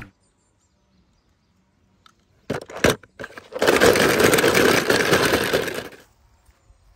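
Car sound effect: a few sharp clicks, then a loud, steady rushing noise for about two and a half seconds that fades out.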